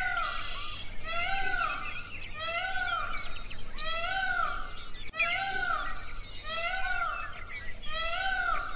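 Indian peafowl (peacock) calling over and over, a loud nasal call about once a second, each rising and then falling in pitch.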